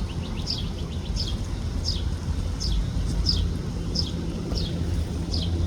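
A bird repeating a short, high, downward-sliding chirp about every two-thirds of a second, eight times in a row, over a steady low rumble.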